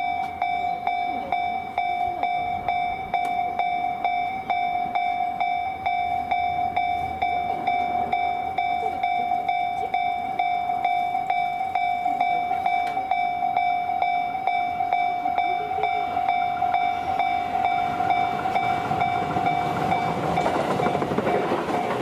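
Japanese level-crossing warning alarm ringing its steady, evenly repeating tone. Near the end a Tobu 10000 series electric train arrives, and its rumble rises beneath the alarm.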